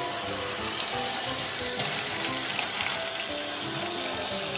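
Tap water running steadily into a stainless steel bowl of chopped napa cabbage, splashing over the leaves as a hand rinses them. Background music plays faintly underneath.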